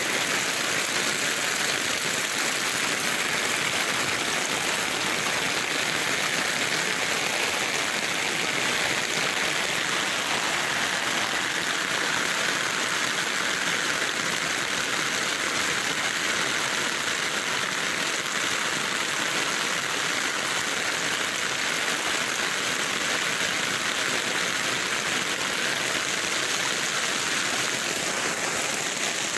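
Heavy rain pouring down with floodwater running over the ground: a steady, even hiss throughout.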